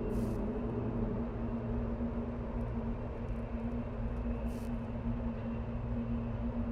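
Dark ambient soundscape: a steady low rumble under a held low hum, with faint scattered crackles and two brief hisses, one at the very start and one about four and a half seconds in.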